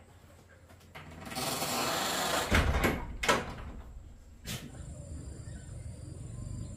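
A door being pulled shut: a scraping sound for about a second and a half, then a few knocks as it closes, and a lighter click a second later.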